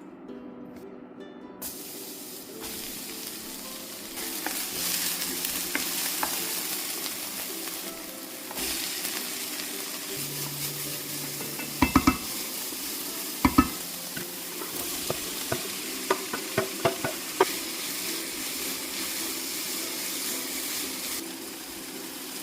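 Food sizzling in a hot frying pan, the sizzle starting about two seconds in and easing near the end, while a utensil stirs it and knocks sharply against the pan several times around the middle.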